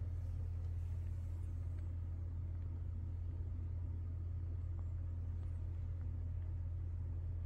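Steady low hum with no other events.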